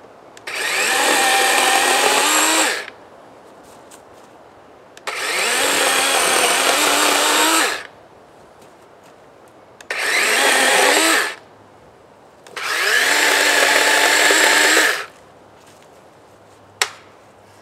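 DeWalt 20V battery-powered chainsaw running in four bursts of a few seconds each as it cuts through small tree limbs, its electric motor whining up to speed at the start of each burst. A single sharp click near the end.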